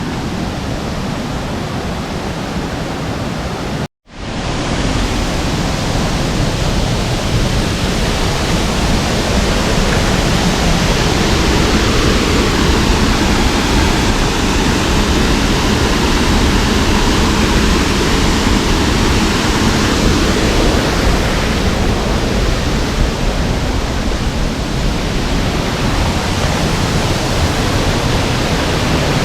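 Waterfall rushing steadily, a loud, even noise. It breaks off for an instant about four seconds in, then carries on a little louder.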